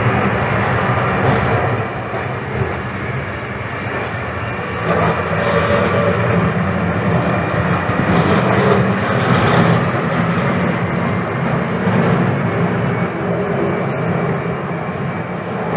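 Snowplow truck's engine running steadily, with a continuous low drone that grows a little louder about five seconds in.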